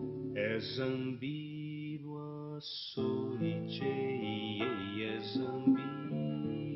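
Nylon-string classical guitar being played, with a man singing wordlessly over it; the music breaks off briefly just under three seconds in.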